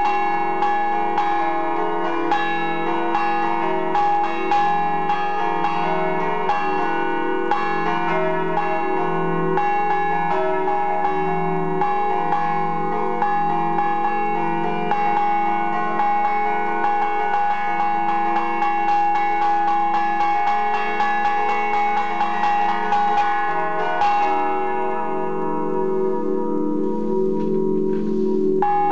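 Three Broili-cast bronze church bells (c. 1921, tuned to E-flat major) played as a Friulian scampanotada: the bells hang still while their clappers are struck against them by hand in fast, interlocking rhythmic patterns. Near the end the striking pauses for a few seconds and the bells ring on, fading, before the strikes start again.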